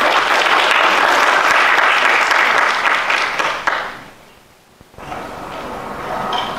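Audience applauding, the clapping dying away about four seconds in. After a brief lull, a steady background hum sets in.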